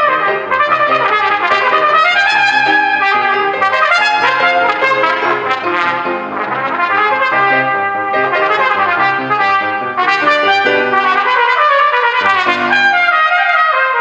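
Cornet playing a solo melody of quick, running notes.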